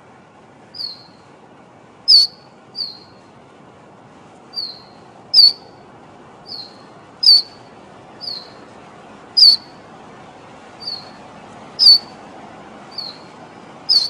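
A fledgling wren gives short, sharp chip calls, each sliding slightly downward. There is about one call a second, alternating louder and softer.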